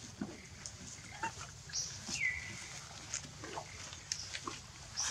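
Young macaques squeaking in rough play. About two seconds in comes one longer whining call that falls in pitch and then holds steady.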